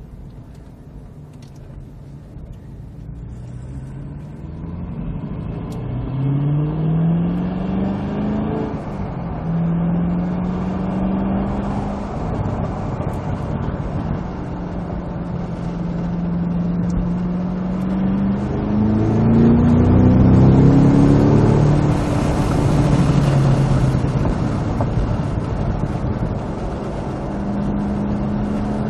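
Cadillac CT5-V Blackwing's supercharged 6.2-litre V8 accelerating hard with a manual gearbox. It starts quiet and builds, and its pitch climbs and drops several times as it revs up through the gears. It runs steady in between, and the loudest, highest climb comes about twenty seconds in.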